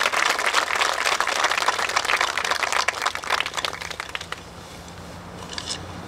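An audience applauding: a dense patter of hand claps that thins out and dies away about four seconds in, leaving a few scattered claps.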